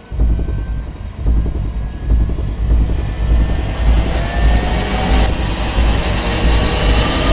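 Helicopter hovering close overhead: a heavy low beating from the rotor blades with a turbine whine above it that slowly rises in pitch from about three seconds in.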